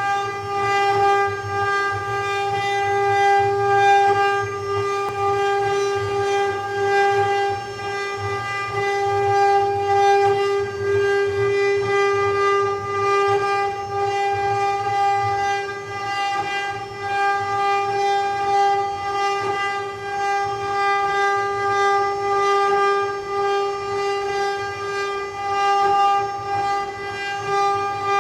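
CNC wood-carving router spindle running at constant speed with a steady, high whine, over a rough rumble that swells and dips as the machine carves.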